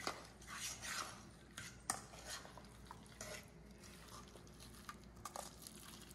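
A utensil stirring chunky guacamole in a stainless steel mixing bowl: faint, irregular scrapes and clicks against the bowl, with one sharper click about two seconds in.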